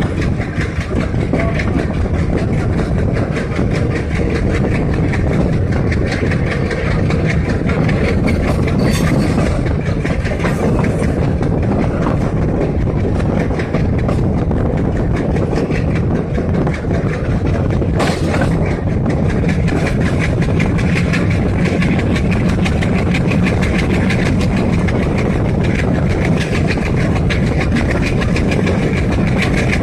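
Diesel train under way, its engine running with a steady low drone and its wheels running on the rails. There is a single sharp click about eighteen seconds in.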